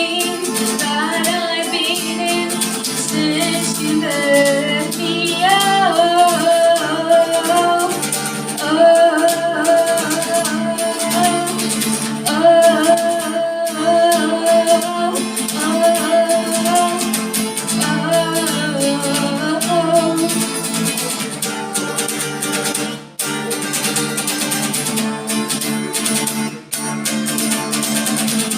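Music: a song played on guitar, with a wavering lead melody carrying over the guitar for about the first twenty seconds without words, then the guitar going on alone.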